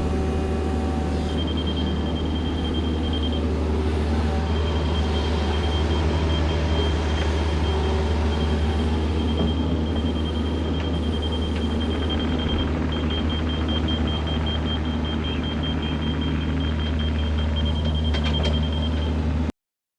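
Mini excavator's diesel engine running steadily while digging, with a rapid high-pitched beeping from about a second in; the sound cuts off suddenly just before the end.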